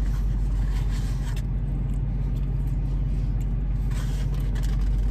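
Steady low hum of a car idling, heard from inside the cabin, with faint mouth noises of someone chewing fries.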